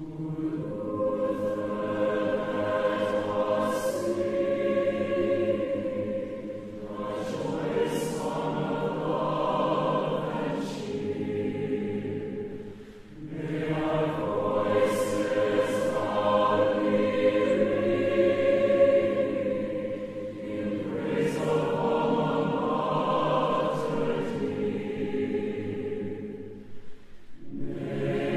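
Mixed college choir singing a hymn, recorded live in a concert hall. The singing goes in long phrases, with a brief dip between phrases about 13 seconds in and another near the end.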